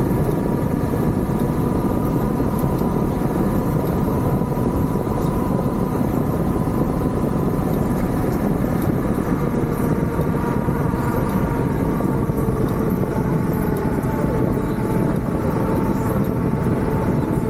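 Hurricane wind blowing in a steady loud roar, with a faint steady whistle above it.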